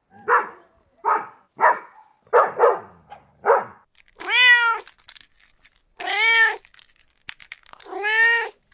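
A dog barks about six times in short, quick barks, then a cat meows three times, each meow a long call that rises and falls in pitch.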